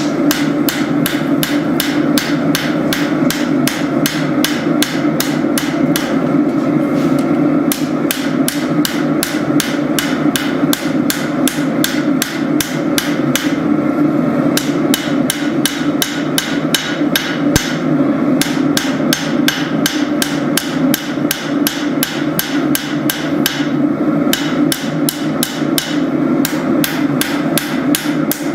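Hammer blows on hot spring steel at the anvil, forging a blade: sharp ringing strikes about three a second, with a few short pauses, over a steady low rumble.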